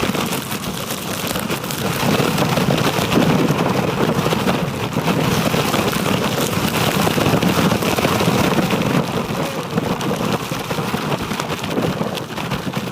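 Strong wind buffeting the microphone during a blizzard: a loud, continuous rumbling rush that swells and eases.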